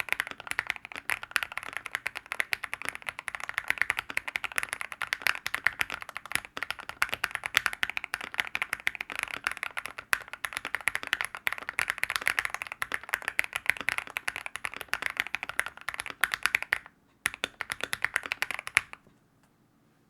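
Fast, continuous typing on a mechanical keyboard fitted with linear switches, the keystrokes coming as a dense patter. It pauses briefly about seventeen seconds in, resumes for a couple of seconds, then stops.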